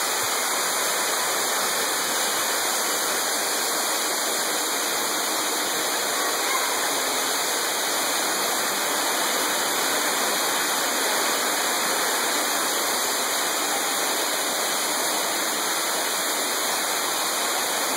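Ruby Falls, an underground waterfall in a cave, pouring steadily into its pool as an even rush of falling water.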